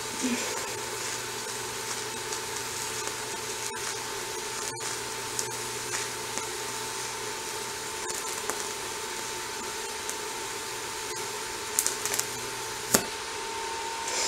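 TIG welding arc running steadily: an even hiss with a low hum and a thin, steady high tone. The arc breaks off with a click about 13 seconds in, followed by a few small clicks.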